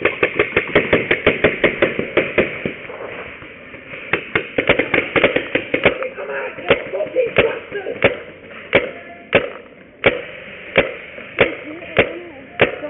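Paintball markers firing: rapid volleys of about five shots a second, then steadier single shots roughly every half second to second. Faint shouting in between.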